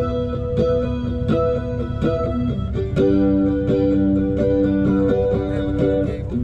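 Cigar box mandolin being played: a run of plucked notes and strummed chords, with notes ringing longer about halfway through.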